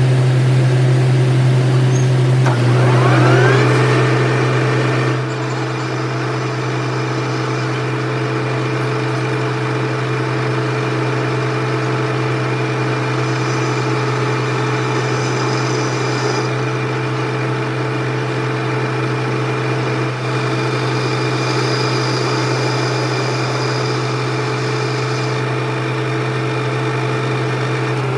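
A lathe running under a steady low motor hum: its whine rises in pitch about three seconds in as it comes up to speed, holds steady, and falls away at the end as it winds down.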